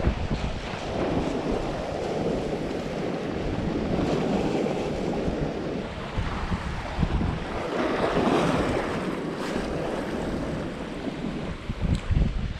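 Wind buffeting the microphone over the wash of the sea, rising and falling in swells.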